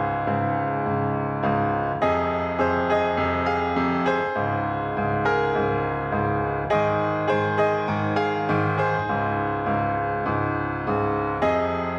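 Background music: piano notes played in a steady, repeating pattern.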